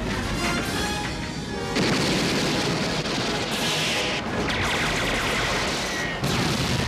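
Film trailer music mixed with loud sound effects: a dense rushing noise with booms and crashes that grows louder about two seconds in.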